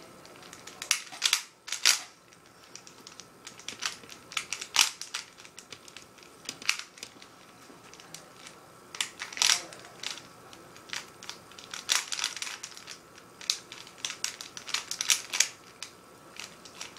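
Plastic Rubik's cube being turned quickly by hand: irregular clusters of sharp clicks and clacks as the layers snap round, some much louder than others.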